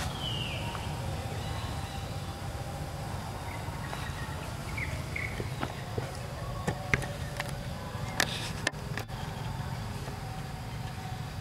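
Outdoor forest ambience: a steady low rumble with a falling high squeak at the very start and a few short high chirps, plus scattered sharp clicks and taps, the loudest a little past the middle.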